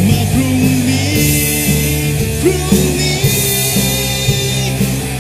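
Recorded Thai song playing: band music with a singing voice.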